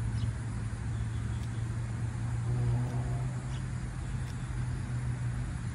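A steady low hum of a running engine, with a brief faint murmur about halfway through.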